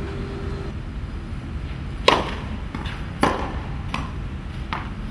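Tennis ball struck by racket strings on a clay court: two sharp, loud hits about a second apart, with fainter knocks between them and after.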